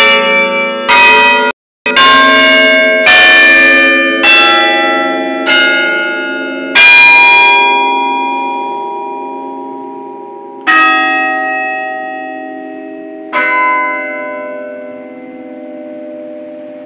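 Loud church tower bells, cast at the same foundry as the Liberty Bell, struck one after another at different pitches, each ringing on and slowly dying away. About ten strikes, roughly once a second at first, then further apart, with the last two several seconds apart. The sound drops out for an instant about a second and a half in.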